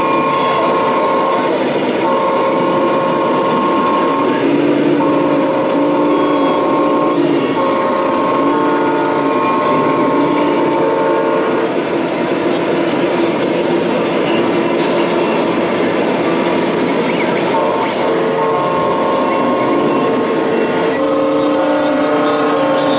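Air-horn sounds from RC model trucks' sound modules: chords of several tones held for a second or two and repeated many times with short gaps, over steady exhibition-hall noise.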